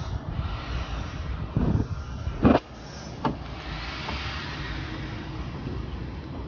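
Screwdriver work at a car's wheel arch, fitting a mud flap: a dull thump, then a sharp knock about two and a half seconds in (the loudest sound) and a smaller click just after, over a steady low outdoor rumble.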